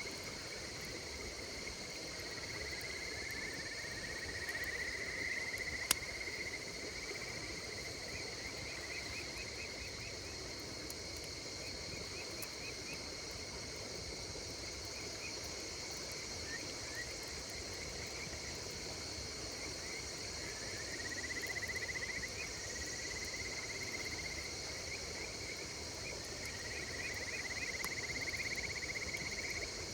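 Night insects chirping in a steady chorus, with a pulsed, rising trill that swells several times. A wood fire pops sharply once about six seconds in.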